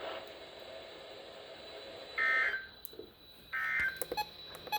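Two short squawks of EAS SAME digital data tones, warbling between two pitches, received over NOAA Weather Radio with a faint hiss under them. They are the end-of-message code that closes a Required Weekly Test. The first comes about two seconds in and the second about a second later.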